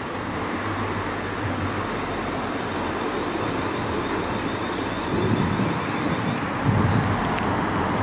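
A train approaching along the track: a steady running noise that grows a little louder from about five seconds in, with a thin high whine.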